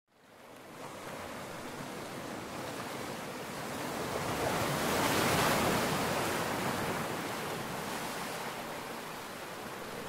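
Ocean waves washing in a steady rush of surf that fades in, swells to a peak about halfway and eases off again.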